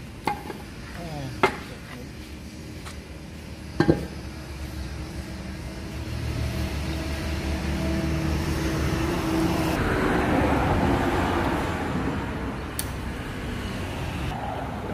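A few sharp metal knocks from hand tools, then a motor vehicle's engine and tyre noise swelling and easing off as it passes.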